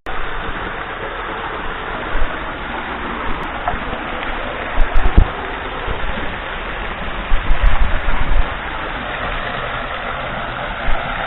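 Small waterfall splashing steadily into its pool, a constant rush of water, with a few brief low thuds about five seconds in and again around eight seconds.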